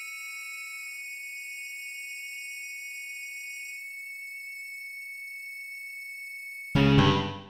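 Modern chamber-ensemble music: several high, pure held tones sustain quietly, some of them dropping out about four seconds in. Near the end a sudden loud chord from low to high strikes and dies away within about a second.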